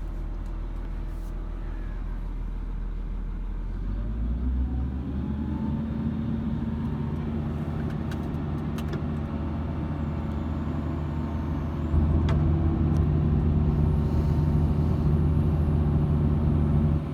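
Diesel engine of a 1998 Hitachi EX230LC-5 excavator running steadily. About four seconds in it speeds up, and about twelve seconds in it gets louder.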